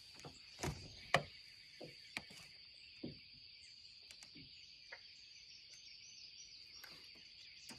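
Faint, steady chorus of insects calling on one high pitch, with a few soft clicks and knocks in the first three seconds.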